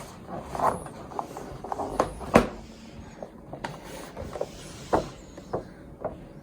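Small toy cars and their plastic packaging being handled: a string of light clicks and knocks, the sharpest about two and a half seconds in.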